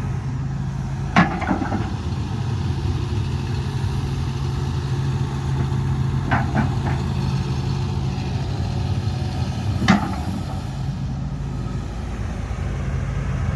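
Hitachi 245USLC-6 excavator's diesel engine running steadily with a low hum. Sharp metallic knocks come about a second in, a cluster around six seconds, and one near ten seconds.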